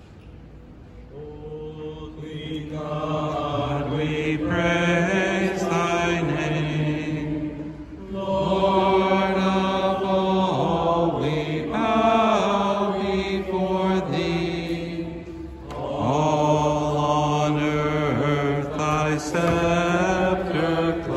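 Low voices singing a slow, chant-like hymn in three long phrases of sustained, held notes, with short breaks between them; the singing rises in about a second or two in.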